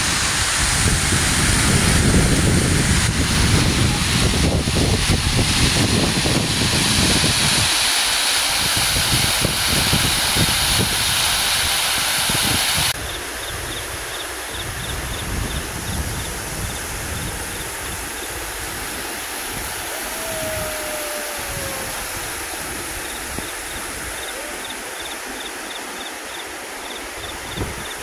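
Stream water rushing over rocks in a small cascade, with a fluctuating low rumble for the first several seconds. About thirteen seconds in it cuts abruptly to a quieter steady outdoor hiss with short runs of fast, high-pitched ticking.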